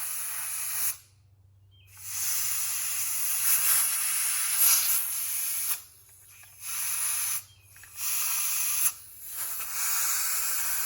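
Compressed air from an air compressor's blow gun hissing in several blasts, each one to four seconds long with short pauses between, blowing dust out of a smoke detector that gave a false alarm.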